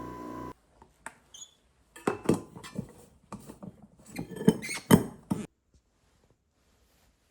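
Background music cuts off about half a second in, followed by several seconds of irregular small clicks, taps and clattering knocks of objects being handled, loudest near the end.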